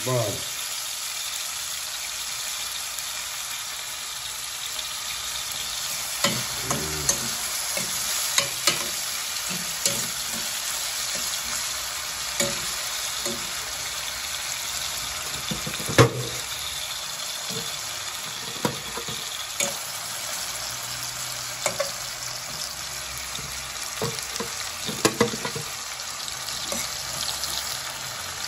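Chopped onions and tomatoes sizzling in hot oil in a steel pot, stirred with a metal fork that clinks and scrapes against the pot now and then; one clink about halfway through is the loudest.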